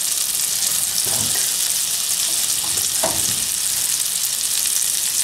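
Flour-dredged pieces of boiled beef udder sizzling steadily in melted butter in a frying pan.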